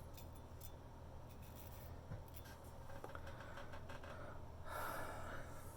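Faint scraping of an antique C.Mon straight razor being drawn over lathered skin during a shave, with a brief louder rustle near the end.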